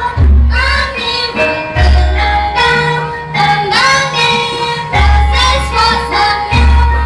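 A Javanese gamelan ensemble playing, with ringing bronze metallophone tones and deep low strokes recurring. Sung vocal lines slide over the instruments.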